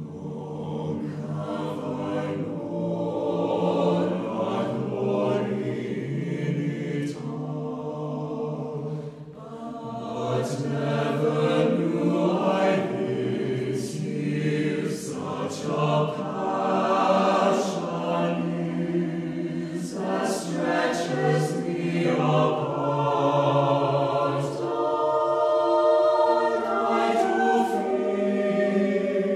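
Choir singing sustained chords. The voices come in right at the start out of a near-silent pause, and there is a short break between phrases about nine seconds in.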